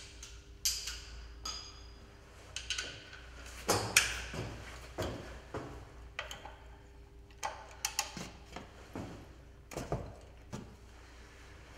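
Wrench clinking and knocking against the oil drain plug and the metal underbody of a BMW 320d as the plug is worked loose: a string of irregular sharp metallic knocks and pings, the loudest about four seconds in.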